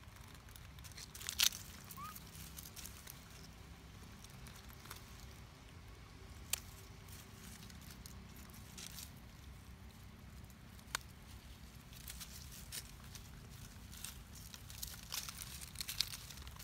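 Dry leaf litter rustling and crackling as macaques move and feed on it, with scattered sharp clicks, the loudest about a second and a half in and more of them near the end, over a low steady background rumble. A brief faint rising squeak comes about two seconds in.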